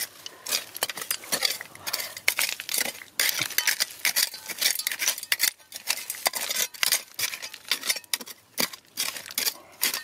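A small metal hand digging tool striking and scraping into dry, stony soil: quick, irregular clinks and scrapes of metal on stones and gravel, several a second.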